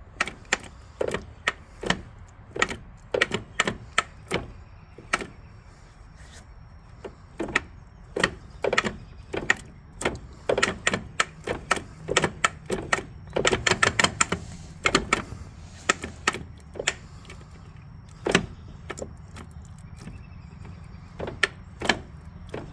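Spartan automatic locker in a 1999 Wrangler's Dana 30 axle making repeated sharp pops and clicks at irregular intervals, coming thick and fast for a couple of seconds in the middle, over a steady low hum. The owner suspects one side of the locker is unlocking unevenly, at an angle, and causing the popping and jerking.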